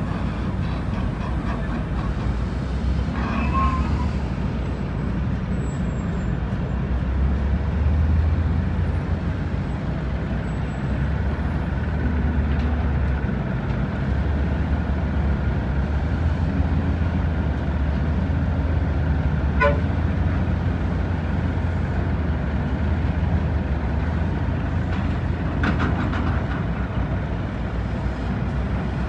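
Heavy diesel engines of dump trucks and an excavator running steadily, a continuous low rumble, with a short high tone about three seconds in.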